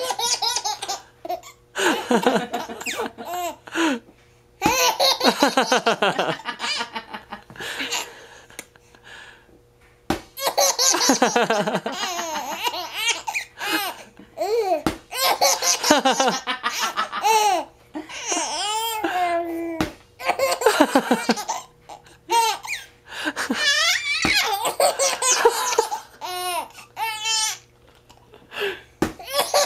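Baby laughing in repeated bouts of high-pitched laughter, with short pauses between them and a quieter stretch about a third of the way in.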